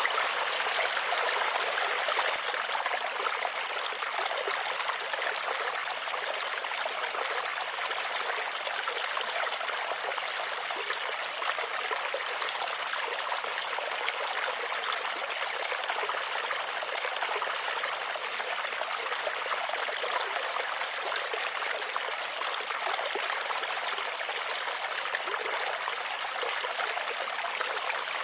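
Steady running water, like a flowing stream, as a continuous background track without change or pauses.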